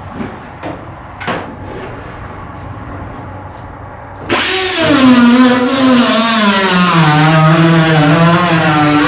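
A few light clicks, then about four seconds in a cut-off tool starts and cuts into car body sheet metal: a loud whine that drops in pitch as the wheel bites, then holds, with a hiss over it.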